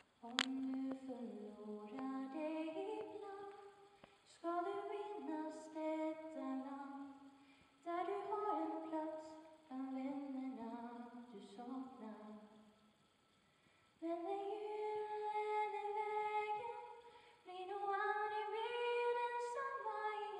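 A woman singing a song in Swedish, solo and unaccompanied, in phrases of a few seconds with short breaks between them. A sharp click comes just after the start.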